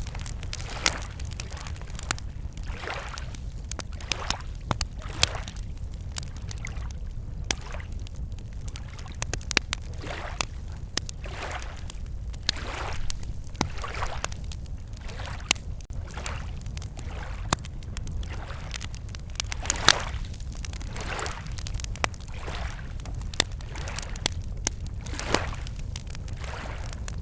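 Wood campfire crackling with frequent sharp pops, while small waves lap against the lake shore in soft washes every second or two, over a steady low rumble.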